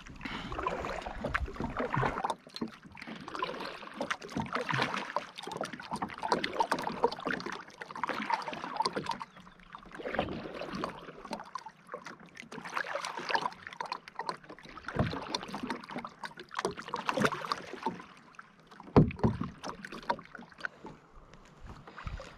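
Kayak paddle strokes: the blades dipping and splashing through the water in a steady rhythm, about one stroke every two seconds, with a few short knocks in between.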